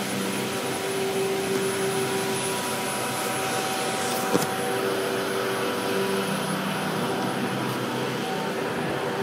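Steady rush of air and machinery hum with several steady tones, from the air handling and equipment of a semiconductor fab. A single sharp click about four seconds in.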